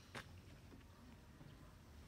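Near silence: faint outdoor background with a single brief click just after the start.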